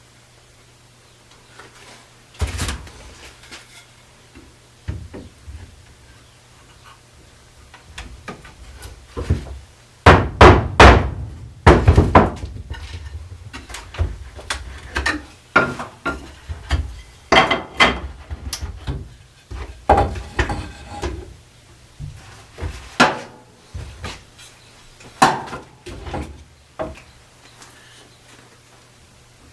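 Irregular knocks and bangs of wood on wood as a wooden chair frame is worked on during repair, with a run of heavy blows about ten to twelve seconds in and lighter scattered knocks after.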